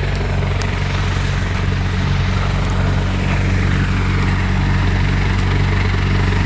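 Mahindra Novo 755 tractor engine driving a PTO thresher, a steady drone with the thresher's rushing noise over it. The thresher is running empty, with too little crop being fed in to load it.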